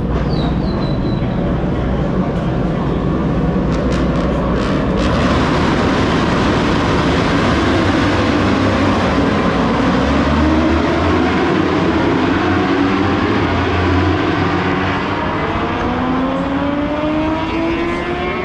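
Superbike racing motorcycles' engines running at high revs together, a loud, dense engine noise. Near the end several engines climb steadily in pitch as the bikes accelerate.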